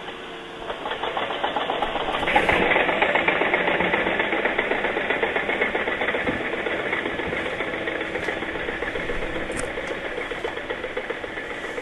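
An engine running with a rapid, even clatter, growing louder about two seconds in and then slowly fading.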